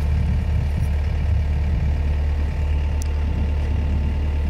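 An engine idling steadily with a low, even hum, with no change in speed.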